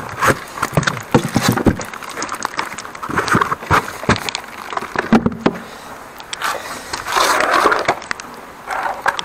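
Handling noises from gloved hands packing insulation back into a water meter box: scattered scrapes, rustles and light knocks of foil-faced pad, styrofoam and plastic. A longer rustling scrape about seven seconds in comes as a rubber mat is laid over the box.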